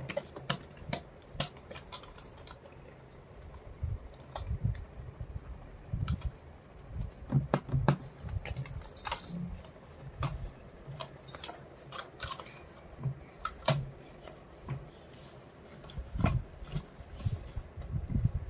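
Scattered light clicks and knocks of small plastic toys and balls being bumped about, with soft low thumps, as a baby crawls among them on a foam play mat.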